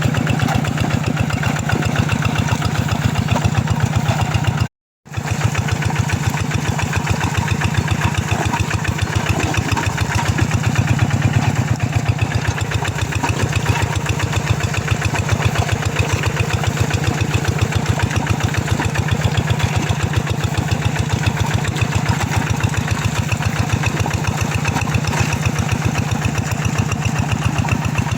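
Two-wheel hand tractor's single-cylinder diesel engine running steadily, with a rapid even chugging, which drops out for a split second about five seconds in.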